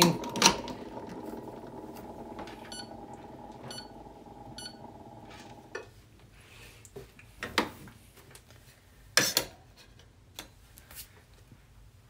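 Breville Dual Boiler espresso machine's pump running steadily while flushing water through the group head, then cutting off about six seconds in. Afterwards come a few clicks and two louder knocks of the portafilter being handled.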